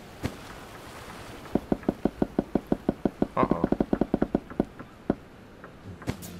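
A rapid run of short, sharp clicks or taps, about six to eight a second for roughly three seconds, with a brief pitched sound in the middle and a few lone clicks near the end.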